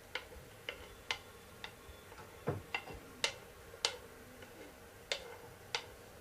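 Whole cloves and black peppercorns dry-roasting in a pan: about a dozen sharp, irregular clicks and pops, roughly two a second, over a faint steady hum.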